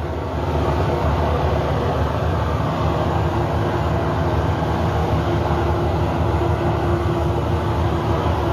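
Steady low engine rumble of a harbour tugboat pushing hard, its propellers churning up white water below. A faint steady hum joins about three seconds in.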